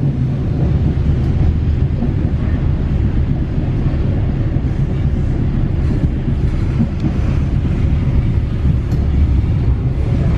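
Passenger train running on curving track, heard from inside a coach: a steady, loud low rumble of the wheels on the rails, with some wind noise.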